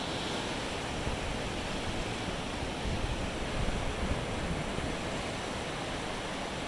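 Ocean surf washing steadily onto a sandy beach.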